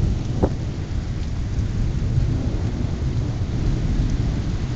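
Thunder rumbling low and continuously over steady pouring rain.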